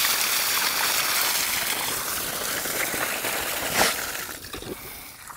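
Water rushing and spraying out of an open irrigation pipe as a steady hiss that gradually eases off, with a single knock about four seconds in.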